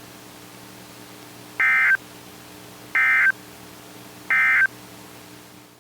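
Emergency Alert System end-of-message signal: three identical short bursts of two-tone digital data (the SAME "NNNN" code), each about a third of a second long and about a second apart, marking the end of the warning. A faint steady hum lies between the bursts.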